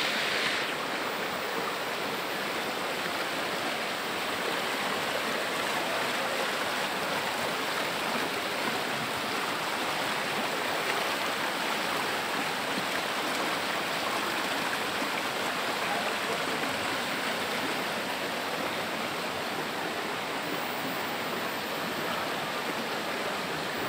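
Shallow rocky stream running over boulders and spilling down a small cascade: a steady rush of water.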